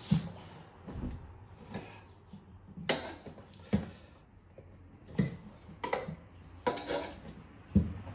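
Metal tyre lever clinking and knocking against a spoked motorcycle rim as a knobby dirt-bike tyre is levered onto it: about ten irregular knocks.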